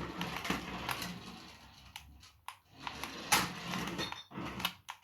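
Toy radio-controlled rally car driving, its small electric motor and gears whirring, with sharp plastic knocks and clatters as it bumps into things; the loudest knock comes a little past the middle.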